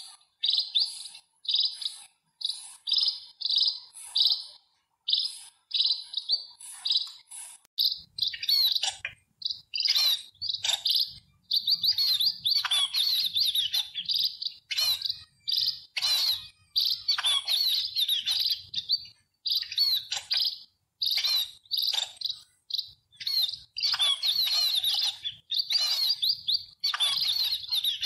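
House sparrows chirping: short repeated chirps, spaced out at first, then a busier run of chirping from about eight seconds in, with a faint low rumble underneath.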